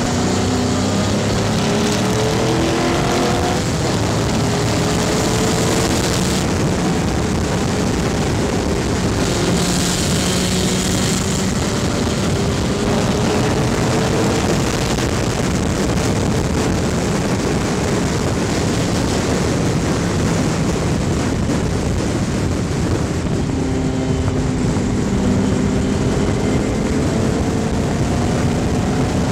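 Race car's GM 5.3-litre LS V8 (LM7) running hard on track, its pitch climbing through the revs several times as it accelerates, most clearly in the first few seconds and again near the end. Heavy wind rush over the roof-mounted camera runs under the engine throughout.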